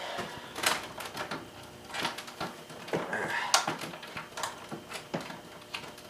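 Cables and plugs being handled behind a computer while a speaker lead is reconnected: scattered plastic clicks and knocks with rustling, one louder knock about three and a half seconds in.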